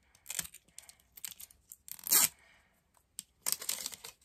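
Plastic packaging of a mini mystery Squishmallow being torn open and crinkled by hand: irregular rustles and rips, with the loudest rip about halfway through.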